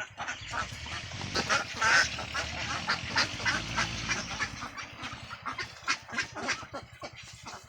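A flock of Khaki Campbell ducks quacking, many short calls overlapping, busiest in the first half and thinning out toward the end.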